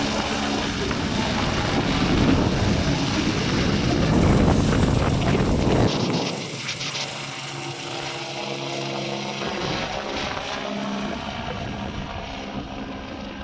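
Air ambulance helicopter climbing away overhead after take-off, rotor and turbine noise. It grows louder for the first few seconds, drops abruptly about six seconds in, then fades as it flies off.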